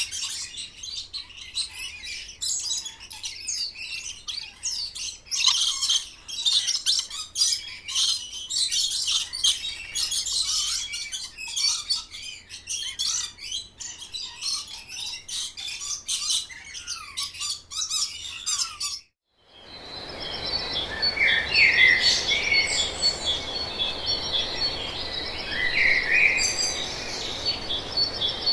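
Small birds chirping and calling in quick, overlapping bursts. About two-thirds of the way in, the sound cuts out briefly. A different recording then starts, with a steady high trill, separate louder chirps and a steady background hiss.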